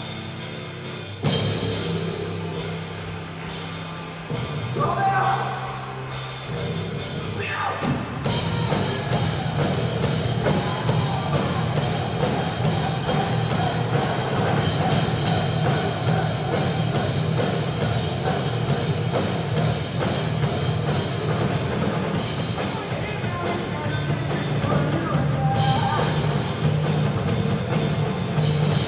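Live rock band playing: electric guitars over a drum kit with steady cymbal and drum hits, the full band coming in hard about a second in.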